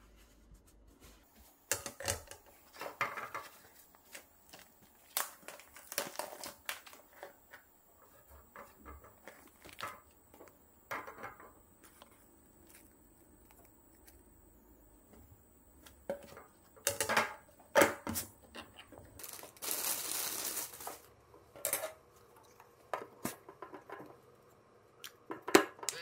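Plastic food containers and cling film being handled: crinkling and crackling of the film and the thin plastic tray, with scattered clicks and taps of lids and containers. About twenty seconds in comes a steady rushing hiss lasting about a second and a half.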